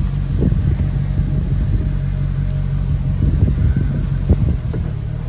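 Twin Mercury MAG 350 V8 boat engines idling steadily, with a few irregular low knocks as the port engine is shifted in and out of gear. The engine keeps running through the shifts: the stall on shifting that the owner is testing for does not happen here.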